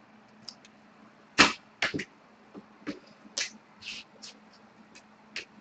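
Irregular clicks and taps of a hard plastic card holder and trading cards being handled and set down on a table, the loudest about one and a half seconds in.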